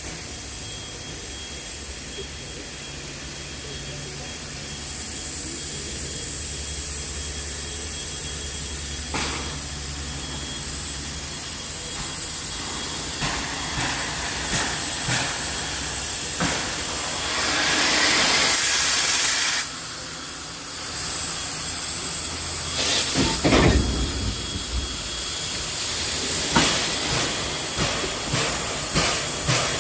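NSWGR 59 class 2-8-2 steam locomotive 5917 hissing steam steadily. A loud burst of escaping steam comes about two-thirds of the way through, followed by a heavy thump. Near the end a run of regular beats starts as the train moves.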